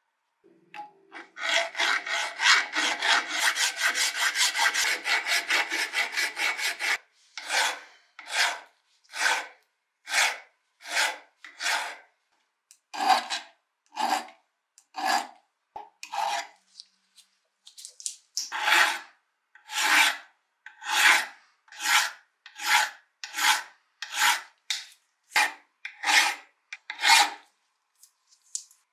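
Hand file scraping across the steel jaws of an old wrench held in a vise: quick short strokes, about five a second, for the first several seconds, then slower strokes about one a second.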